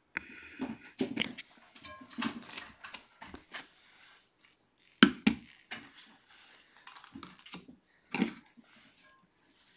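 Irregular knocks, taps and scrapes as cat food bowls are picked up and set down on mats and a wooden floor, the loudest a sharp knock about five seconds in.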